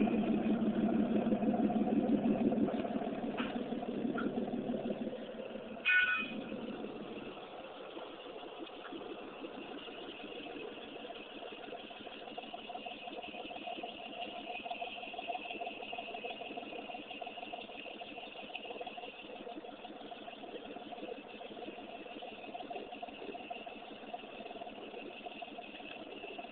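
Jeep engine idling steadily, louder for the first five seconds, then quieter and even after a brief knock about six seconds in.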